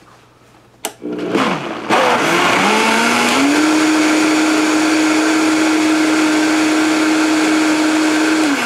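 Vitamix blender switched on with a click about a second in; its motor whine climbs in pitch in steps over the next two seconds as it speeds up, then runs steadily blending the thick puréed soup, and starts to slow at the very end.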